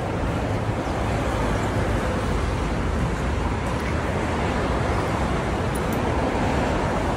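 Steady traffic noise from cars, taxis and buses on a busy city street: an even, unbroken rumble and hiss.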